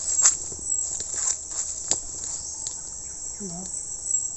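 Steady high-pitched chorus of insects, with a few sharp clicks near the start and about two seconds in.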